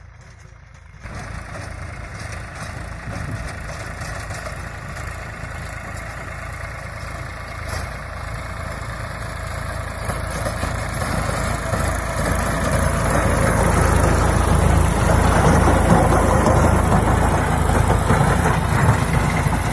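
Tractor diesel engine running under load while pulling a Narmada rotavator, its rotary blades churning dry soil. It steps up sharply about a second in and then grows steadily louder as the tractor comes close.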